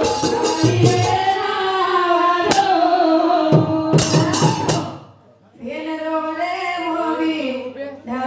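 Banjara devotional bhajan: a woman sings into a microphone over hand-drum beats. The music breaks off briefly about five seconds in, then the singing resumes.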